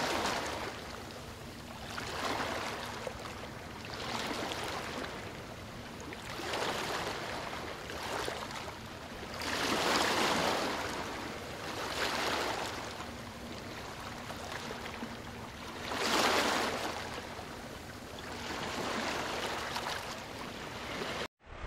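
Small sea waves breaking and washing over a pebble beach, swelling and falling back every two seconds or so.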